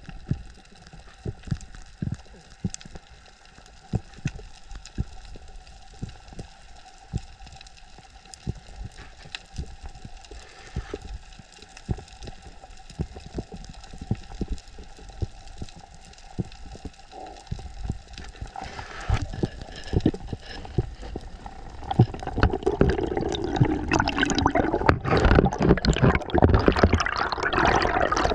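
Water sounds picked up by a diver's camera: scattered sharp clicks over a faint hum, then rushing and bubbling water that grows louder from about two-thirds of the way in.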